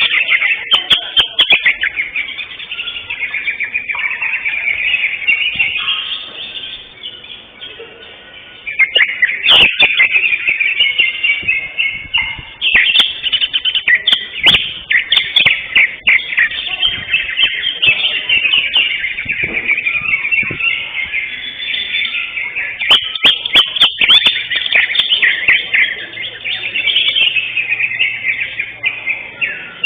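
Cucak hijau (greater green leafbird) singing a fast, almost continuous stream of chirps and warbled phrases, with brief lulls and a few sharp clicks.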